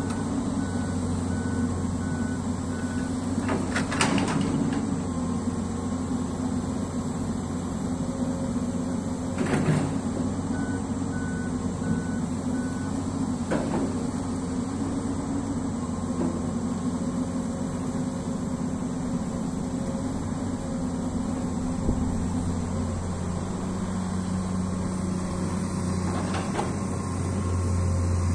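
Diesel engine of a Komatsu long-arm amphibious excavator running steadily under load as it digs, with a few sharp knocks from the working arm and bucket, about four, ten and fourteen seconds in. The engine note drops for a few seconds near the end.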